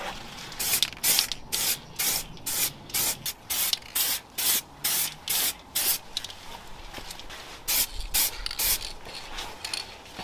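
Aerosol can of gloss black spray paint hissing out in a quick series of short bursts, two or three a second, as a coat is sprayed onto a plastic car diffuser, with a pause of about a second past the middle.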